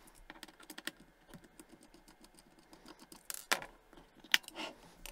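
Small clicks and ticks of a little screwdriver backing out the battery-cover screw on a plastic multimeter case, a quick faint series at first. A few louder plastic clicks follow past the middle as the screwdriver is set down and the battery cover is handled.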